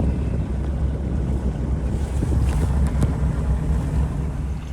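Motorboat engine running steadily as the boat moves across the water, with wind buffeting the microphone.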